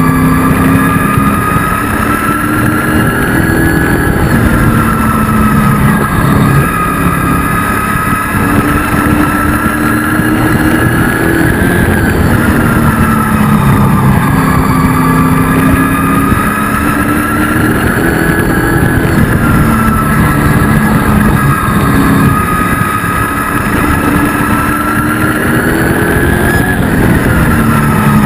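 ASA Speed Truck's race engine at racing speed, heard from inside the cab, with engine and road noise filling the sound. The pitch climbs down each straight and drops into each turn, about every seven to eight seconds, twice a lap.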